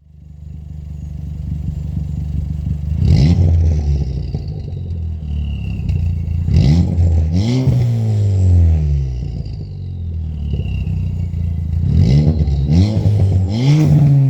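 2016 Ford Fiesta ST's turbocharged 1.6 L four-cylinder through an aftermarket cat-back exhaust and downpipe, idling steadily and then revved several times. The pitch rises sharply and falls back each time, with sharp crackles at the tops of the revs.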